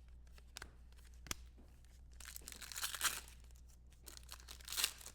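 Foil wrapper of a trading card pack being torn open and crinkled, in two crackling stretches about two and a half and five seconds in, after a few light clicks of card handling.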